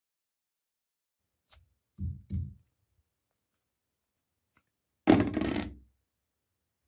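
A small printed ball dropped into a ceramic toilet bowl hits with a loud knock about five seconds in and rattles for under a second as it goes down into the outlet. Two soft, low thumps come about two seconds in.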